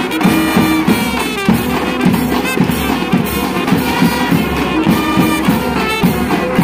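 Kerala band melam, a brass marching band of children, playing a tune on trumpets and euphoniums over a regular drum beat.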